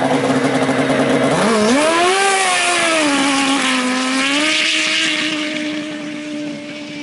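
Turbocharged Yamaha RX1 snowmobile's four-stroke four-cylinder engine held at high revs on the start line, then the revs climb sharply a little over a second in as it launches. It holds a high, steady pitch as it pulls away down the track, the sound fading near the end.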